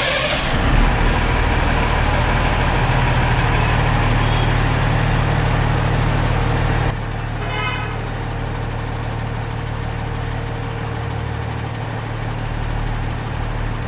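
Heavy tipper truck's diesel engine running steadily with a deep hum, just after starting up. About seven seconds in it drops somewhat in level, and a brief high-pitched tone sounds soon after.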